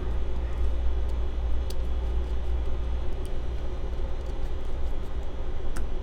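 A steady low rumble, with a few faint, sharp clicks.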